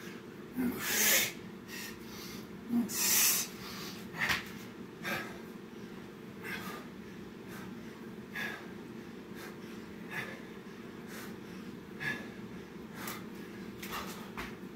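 A man breathing hard while doing burpees: a sharp breath every second or two, the loudest about one and three seconds in, over a steady low hum.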